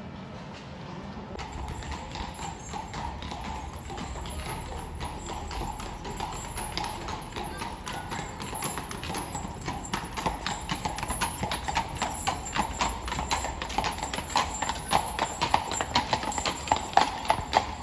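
Hooves of a pair of carriage horses clip-clopping on the asphalt road, growing louder as the horses come close.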